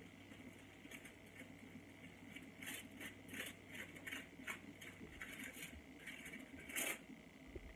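Faint, irregular crinkles and light scrapes of hair-foiling work: a tail comb parting hair and a sheet of aluminium foil being handled. The loudest crinkle comes near the end.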